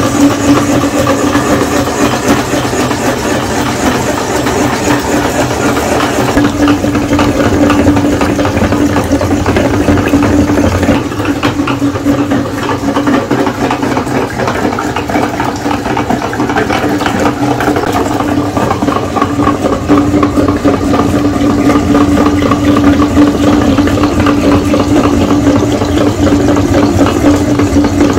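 Electric meat grinder's motor running steadily under load as it grinds jelly, a constant loud hum.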